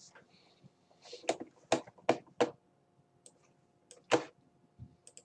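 A few short, sharp clicks in a small room: four in quick succession about a second in, then one more near the end.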